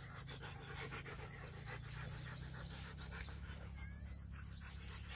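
Siberian husky panting in a quick, even rhythm of breaths, over a faint, steady low hum.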